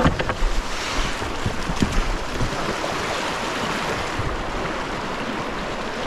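Fast river current rushing past an inflatable raft, a steady wash of water noise, with wind buffeting the microphone and a few light knocks in the first two seconds.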